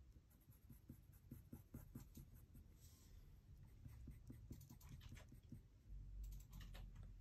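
Colored pencil drawing short, quick strokes on paper: faint scratches, several a second, as small fur lines are sketched in.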